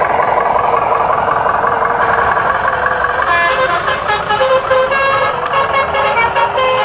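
Truck engine sound running steadily. From about three seconds in, a multi-tone horn sounds over it in a string of short notes that step up and down in pitch.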